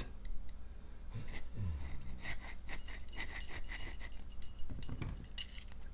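Hand file rasping on the hardened-marked steel of a Guard 445 padlock in a quick run of scratchy strokes, busiest in the middle stretch. The file bites in easily: the 'hardened' steel is not hard.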